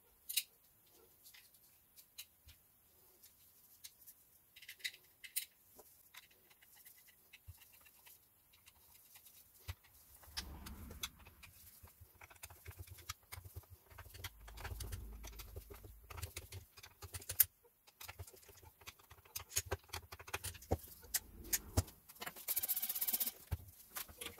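Scattered clicks and taps of a 1.6 HDi engine's plastic fuel filter housing being handled and fitted together on a workbench, with a low rumble of handling from about ten seconds in and a brief hiss near the end.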